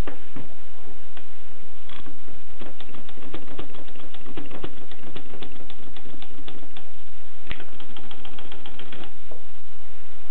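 Keys of a 1920s Erika manual typewriter struck in an irregular run of clicks, from about two seconds in until about nine seconds, with one louder strike near the end of the run, over a steady background hiss.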